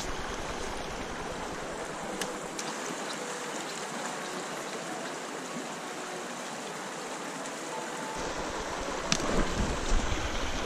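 Small shallow creek running steadily over rocks and woody debris. A few brief clicks and a low rumble come in near the end.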